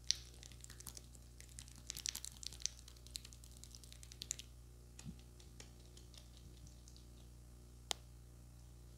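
Hands rubbing and massaging a cream-covered face, giving a quick run of soft, wet crackling clicks for the first few seconds, then fewer ones. One sharp click comes near the end, over a low steady hum.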